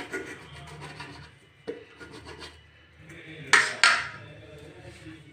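Hands handling pieces of soft semolina-and-potato dough on steel plates, with light rubbing and small scratchy clicks against the metal. Two loud, short metal scrapes come close together about three and a half seconds in.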